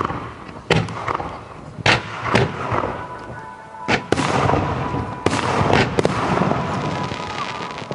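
Aerial fireworks bursting: five or so sharp bangs spread over the first five seconds, with crackling and fizzing in between.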